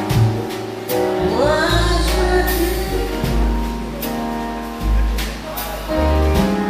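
A woman singing a slow, gliding bossa nova melody with a small jazz band: upright bass holding low notes, piano, and drums with cymbal strokes. The melody swells about a second in.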